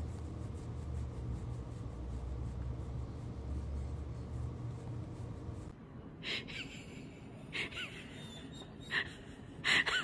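Dogs breathing: a slow, low rumbling breath, then, after a cut, four short, sharp breath sounds.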